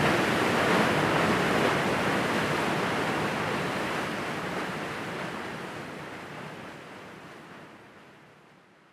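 Water rushing out of an open dam spillway gate and churning into the outlet channel: a steady rush that fades out gradually to silence by the end.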